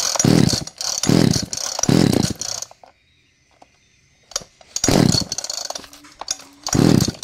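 Tanaka two-stroke chainsaw being pull-started: about five short pulls of the recoil starter, three in quick succession, then after a pause two more. The engine does not catch and run, a new saw that will not start.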